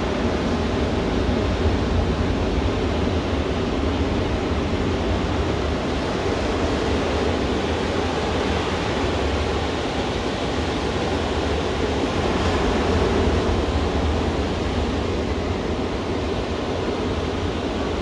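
Ocean surf: waves breaking and washing up a sandy beach, a steady rush of water that swells a little about twelve seconds in.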